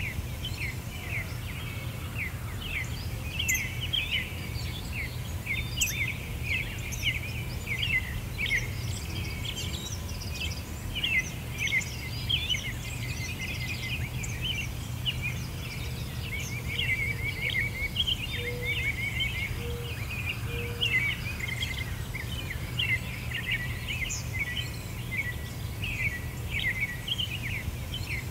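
Small birds chirping continuously, many short high chirps overlapping in a busy chorus, over a steady low rumble.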